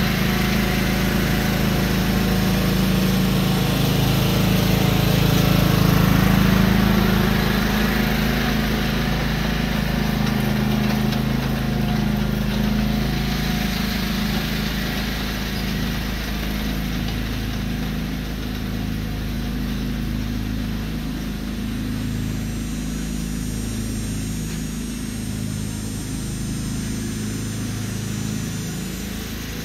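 Riding lawn tractor's engine running steadily as it pulls a tow-behind lawn aerator, loudest about six seconds in and then slowly fading as it drives away.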